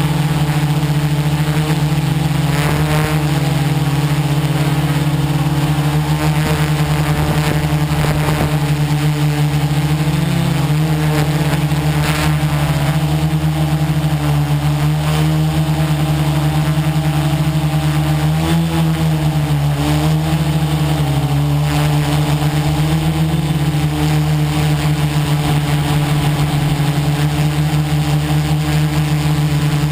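A quadcopter's electric motors and propellers running in flight, heard from a camera mounted on its frame: a loud, steady buzz whose pitch wavers briefly several times.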